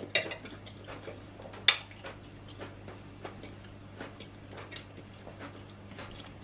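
Quiet eating sounds: mouth smacks and small clicks as food is chewed and handled, with one sharper click about a second and a half in, over a faint steady low hum.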